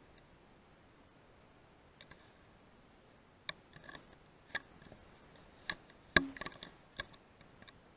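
Faint, irregular clicks and ticks, about eight in all, with one louder sharp click about six seconds in followed by a quick cluster of smaller ones.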